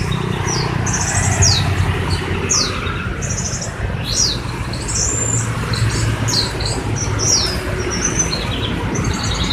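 Young songbirds chirping and calling: quick high notes sweeping downward and short high trills, over and over, with a steady low hum beneath.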